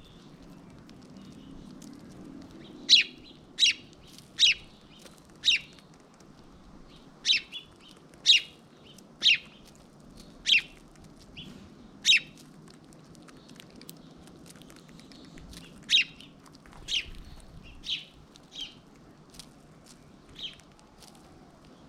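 A small bird chirping: single short, sharp chirps about one a second, in three runs, with the loudest chirps in the first half.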